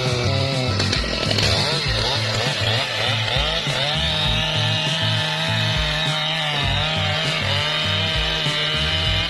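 Chainsaw running and cutting wood, its engine pitch dipping and recovering as the chain loads up in the cut and revs free again. Background music with a steady low beat plays under it.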